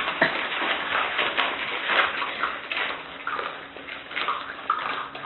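A litter of puppies eating together from one bowl: a busy, wet mix of lapping and chewing, with scattered clicks against the bowl and a few short squeaks.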